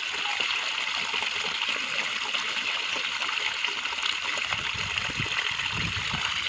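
Water running steadily down a narrow channel dug in mud and pouring into a woven bamboo basket trap, a continuous rushing, splashing sound.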